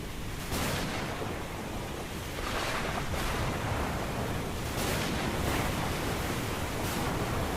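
Ocean surf: a steady rushing hiss of waves, with a louder wash of breaking water swelling up about every two seconds.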